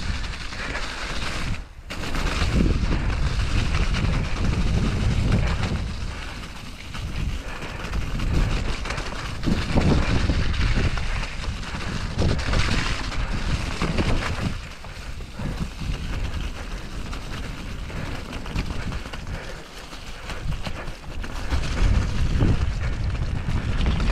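Mountain bike ridden fast down a wet, muddy, rough trail: a steady rush of wind on the microphone with a deep rumble, tyres working through mud, and sharp knocks and rattles from the bike over rough ground.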